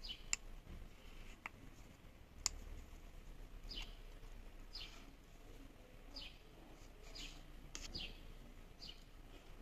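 Faint clicks and taps of a screwdriver and fingers on a small Bluetooth speaker's plastic housing, the sharpest about two and a half seconds in. Behind them a bird gives a short falling chirp, repeated about once a second through the second half.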